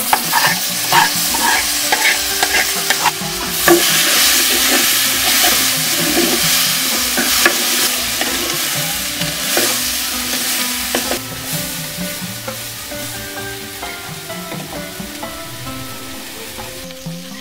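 Cut Ceylon breadfruit sizzling as it fries in a clay pot, stirred with a wooden spoon that clicks and scrapes against the pot. The sizzle is loudest in the first half and eases off toward the end.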